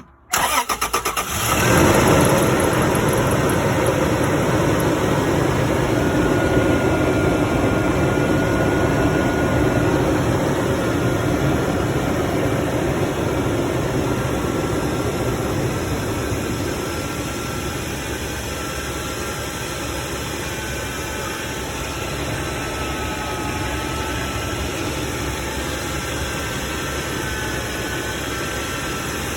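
The 4.0 L V6 of a 2008 Toyota Tacoma starts and then idles steadily, a little quieter in the second half, with a faint high whine over the idle.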